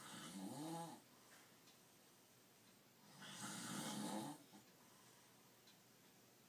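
A person snoring in their sleep, about one long snore every three and a half seconds: one fades out about a second in and the next runs from about three to four and a half seconds.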